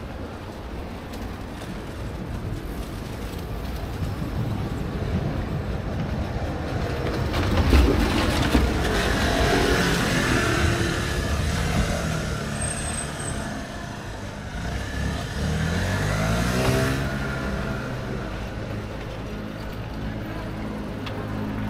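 A motor vehicle passes close by, its noise swelling to a peak a third of the way in. Its engine note rises in pitch about three-quarters of the way through as it accelerates, then settles to a steady drone.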